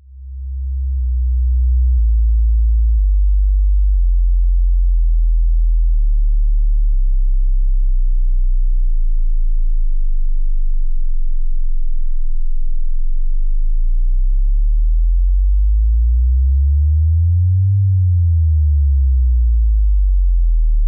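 Deep electronic sine tones, very low in pitch, fading in and changing in steps about once a second. About two-thirds through they begin gliding up and down past one another with a pulsing beat.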